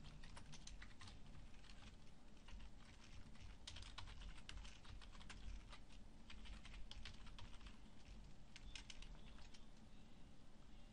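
Typing on a computer keyboard: faint quick runs of key clicks with short pauses between them.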